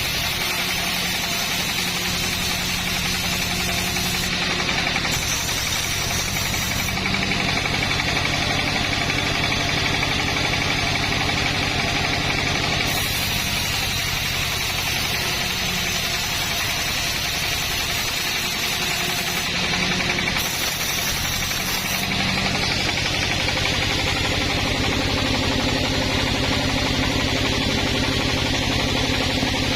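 Small engine running steadily, with a few abrupt shifts in its tone.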